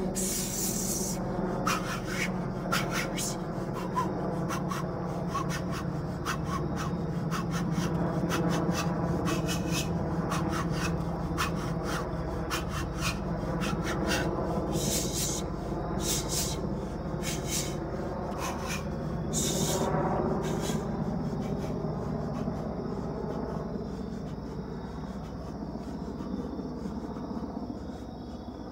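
A man's short, sharp exhales in quick runs, one with each punch as he shadowboxes, thinning out near the end, over a steady low hum.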